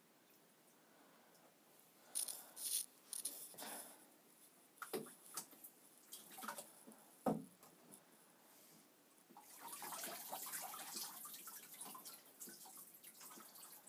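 Bathwater splashing and dripping as two ferrets are washed and rinsed in a bathtub: scattered sharp splashes and drips, then about three seconds of steadier pouring water in the latter half.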